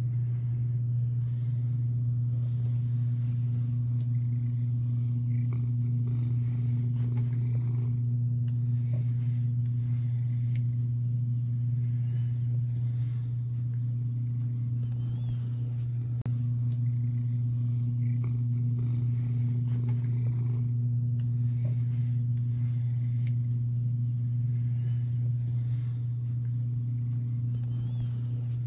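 A steady low hum that never changes, with a fainter higher tone above it and a few faint small sounds over the top.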